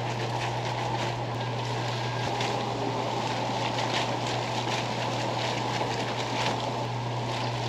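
Fish cakes deep-frying in a wok of hot oil: steady sizzling with light crackles, over a constant low hum.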